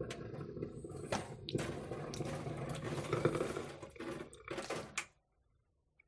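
Colander in use, with water splashing and draining through it and several sharp knocks, cutting off abruptly about five seconds in.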